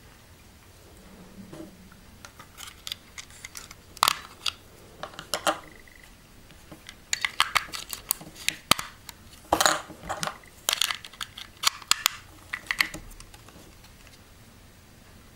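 Clicks and knocks of a small plastic digital kitchen timer being handled while a AAA battery is fitted into its back compartment, in uneven clusters with short pauses.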